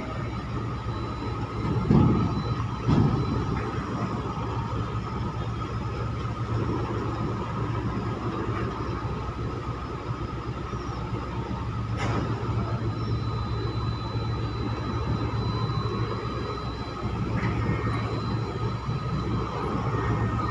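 Steady drone of diesel-driven container-handling machinery (cranes and a forklift) working a cargo ship's loading, with a low hum under it. Two dull knocks come about two and three seconds in, and a sharp click near the middle.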